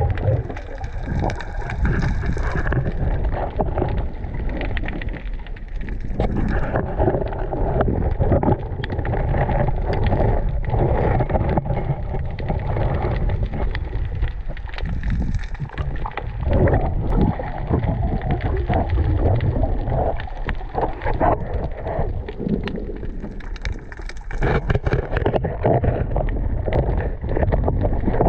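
Underwater water noise heard through an action camera's housing as a freediver swims down: a muffled rumble and gurgle of moving water, with frequent small knocks and clicks.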